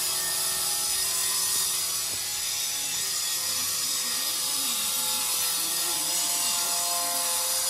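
Steady insect chorus: a dense, high-pitched buzzing and whining that holds at one level throughout.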